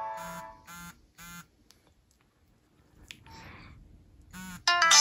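Nokia 7373's built-in stereo loudspeakers: one ringtone fades out in the first second, a few short keypad beeps follow as the ringtone list is scrolled, and the next ringtone starts loud about 4.7 seconds in. The speakers sound a bit crackly, which is put down to their age.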